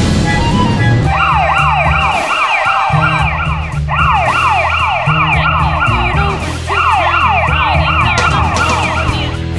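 Police car siren sounding a fast, repeating rise-and-fall wail. It starts about a second in and breaks off briefly twice, over background music.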